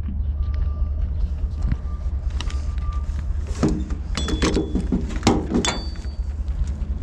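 Steady low rumble of an idling vehicle engine, with scattered sharp clanks and knocks about halfway in.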